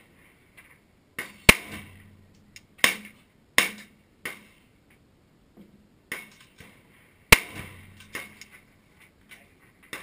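Pistol gunshots on an outdoor range: about eight sharp reports at uneven intervals, each with a short echoing tail. The two loudest come about one and a half seconds in and about seven seconds in.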